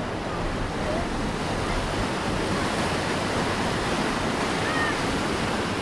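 Whitewater of Pabineau Falls rushing through a narrow rock chute, a steady unbroken rush of water.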